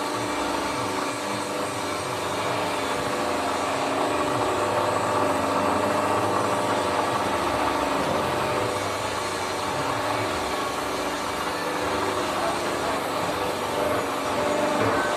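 Hydraulic plate-bending press running steadily, its pump and motor giving a continuous hum with several steady tones.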